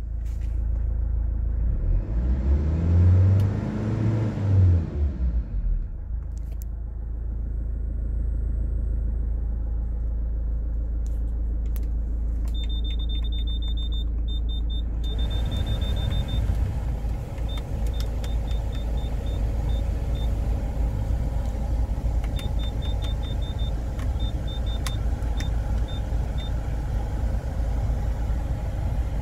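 A Hyundai Terracan's engine idles, heard from inside the cabin; a couple of seconds in, a louder hum rises and then falls in pitch. About halfway through, the climate-control panel gives runs of short high beeps as its buttons are pressed, and the blower fan comes on with a steady rush of air.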